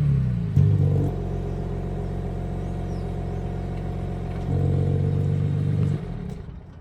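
BMW M3/M4 twin-turbo straight-six idling through a single non-resonated mid-pipe, its resonator section deleted. The revs are settling down just as it begins. A louder stretch comes about two-thirds of the way through, then the engine sound drops away near the end.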